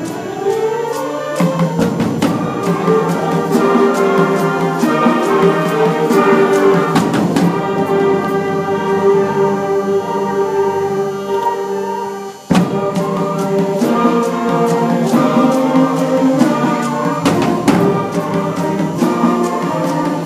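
Live concert band music with a percussion section: sustained pitched wind notes over frequent drum strikes. The music briefly drops away about twelve seconds in, then comes back with a sharp, loud accented hit.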